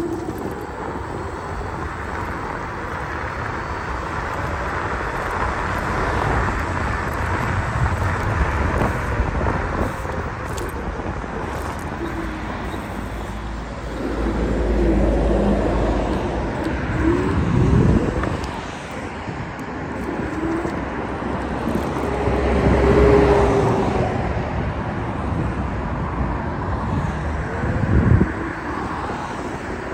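Road traffic heard from a moving electric scooter: a steady rush of wind and road noise, with several louder rumbling swells as vehicles go by.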